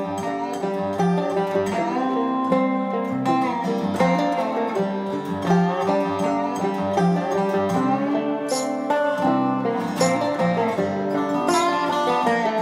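Instrumental background music led by plucked strings, with a steady run of notes.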